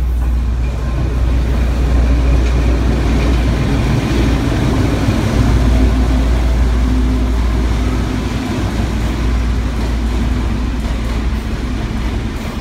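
A freight train passing close by: two diesel-electric locomotives coupled together go by with a loud, low engine drone, and then loaded hopper wagons roll past on the rails as the drone eases.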